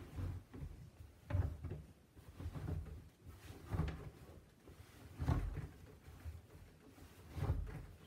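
A duvet being stuffed by hand into a front-loading washing machine's drum: muffled rustles and soft thumps of bulky fabric pushed against the drum and door opening, coming in irregular bursts about every second or two.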